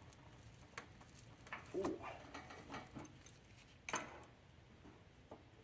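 Scattered metal clicks and taps of wrenches being handled on the mower's oil drain hose fitting, about half a dozen, the loudest about four seconds in.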